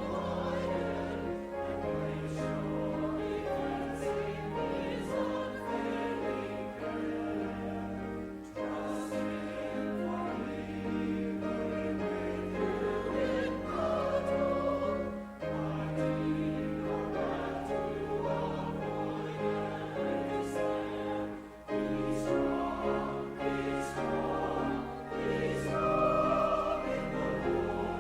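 A choir singing with instrumental accompaniment: several voices holding sustained, changing chords over long, steady bass notes.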